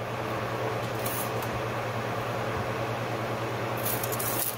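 Steady low hum in a workshop. Near the end a steel tape measure blade is pulled out with a brief rattling hiss.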